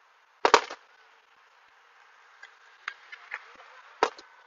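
Aerial fireworks shells bursting: a cluster of sharp bangs about half a second in, a few lighter crackles in the middle, and another bang near the end.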